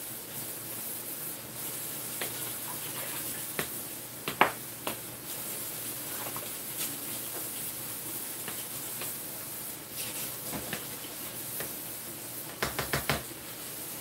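Metal spoon stirring potato salad in a large mixing bowl: scattered clicks and scrapes against the bowl over a steady hiss, with a sharper knock about four seconds in and a quick run of four taps near the end.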